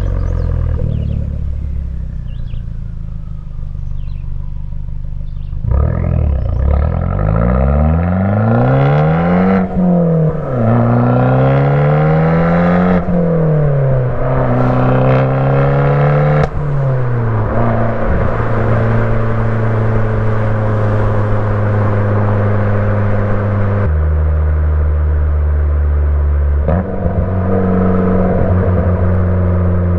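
Fiat 500 Abarth's turbocharged 1.4-litre four-cylinder through an MPx cat-back exhaust. About five seconds in it accelerates hard, with the engine note climbing and dropping back through three upshifts. It then cruises at a steady pitch, drops lower briefly and picks up again near the end.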